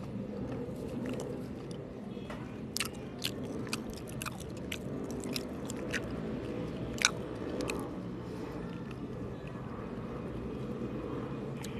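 Close-miked chewing of soft homemade mochi ice cream, with scattered sharp wet mouth clicks, the loudest about seven seconds in, over a steady low background hum.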